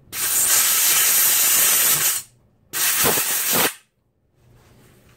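Compressed-air blow gun blowing out a drilled pin hole in a 6-71 blower rotor to clear the brake cleaner: two blasts of hiss, a long one of about two seconds and a shorter one of about a second.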